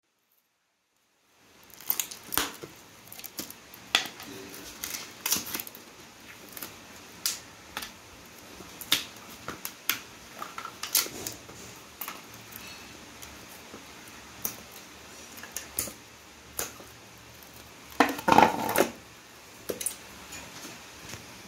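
Irregular clicks, taps and knocks from hands dismantling a wooden mould box and lifting out a cured white silicone block, starting after a second and a half of silence, with the loudest cluster near the end.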